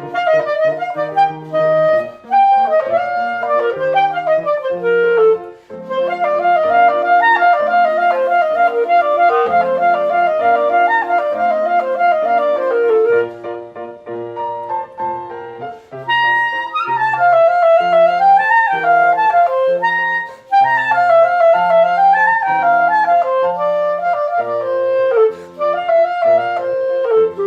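Solo clarinet playing a melody in its upper-middle range over piano accompaniment, with a few short breaths or pauses and quick turning figures in the second half.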